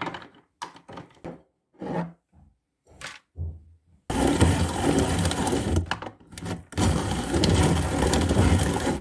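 A few scattered knocks, then about four seconds in a red electric drum grater's motor starts, grinding blanched hazelnut kernels with a loud, steady whirring. It dips briefly around six seconds, then carries on.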